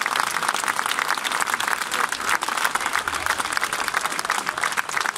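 Crowd applauding: many hands clapping in a dense, steady stream.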